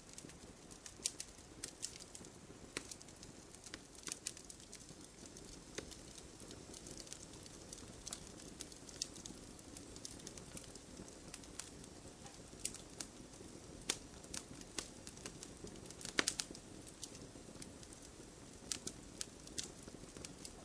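Wood campfire crackling: irregular sharp pops and snaps over a soft steady hiss of flames, with a cluster of louder pops about sixteen seconds in.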